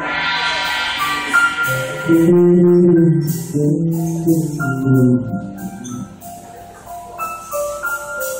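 Live jazz band playing an instrumental passage: piano notes ringing over electric bass, with light cymbal ticks from the drums.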